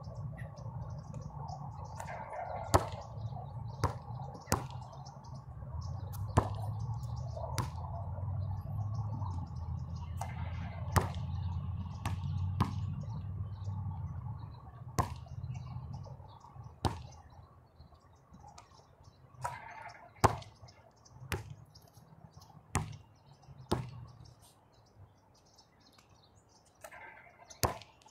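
Basketball bouncing on an outdoor hard court: single sharp thuds at irregular intervals of a second or two, as the ball is dribbled, shot and caught. A low rumble underlies the first half and fades out about halfway through.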